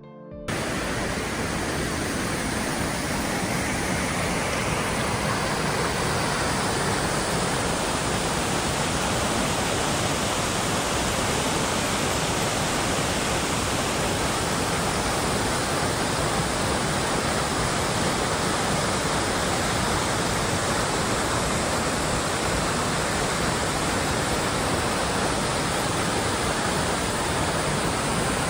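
Steady, loud rush of falling or fast-flowing water. It comes in abruptly about half a second in and then holds even, with no change.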